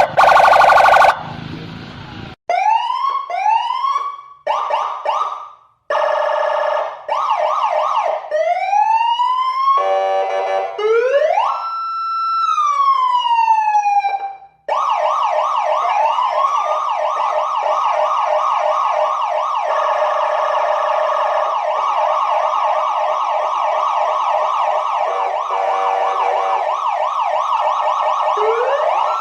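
Indonesian police escort electronic siren cycling through its tones: a loud horn blast in the first second, then a run of short rising whoops, a sweep up to a held tone that falls away, and from about halfway a fast continuous yelp.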